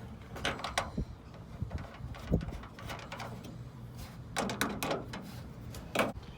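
Scattered metallic clicks and knocks of hand tools and latch parts being handled and fastened inside a pickup's tailgate, a few at a time with short pauses between.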